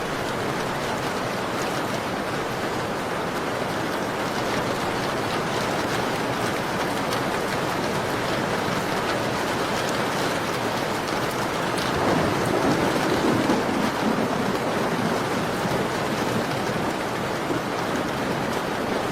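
Steady rain on a window, an even hiss and patter that does not let up. About twelve seconds in it swells for a couple of seconds, heavier in its lower part, then settles back.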